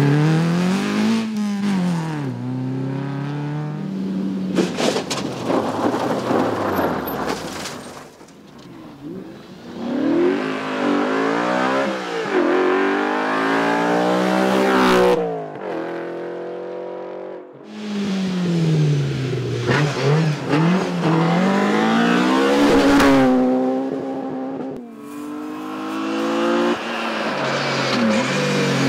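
Rally cars driving hard through a stage: engines revving up and falling back again and again with gear changes and lifts, across several separate passes that change abruptly.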